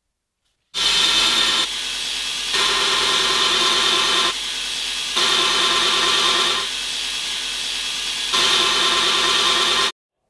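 Belt grinder's abrasive belt grinding grooves into a steel sword blade over a small contact wheel to form a central ridge, throwing sparks. The grinding alternates between four louder, hissier spells and quieter stretches. It starts suddenly about a second in and cuts off sharply near the end.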